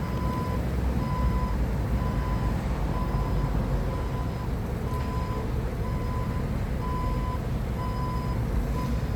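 Forklift reversing alarm beeping about once a second over the low, steady running of its engine as the forklift backs up.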